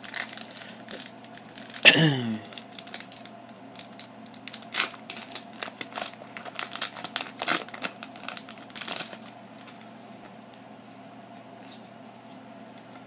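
Foil wrapper of a Pokémon trading-card booster pack crinkling and tearing as it is ripped open by hand, with one sharp loud rip about two seconds in. The crinkling goes on until about nine seconds in.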